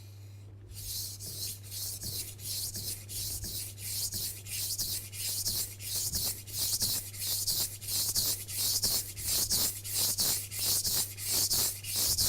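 Global kitchen knife's steel blade being stroked along a wet water stone (whetstone) at a steady 15-degree angle, a rhythmic scraping rasp of about two strokes a second. The strokes start about half a second in and grow slightly louder.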